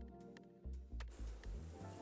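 Quiet background music with changing bass notes and a light, regular ticking beat.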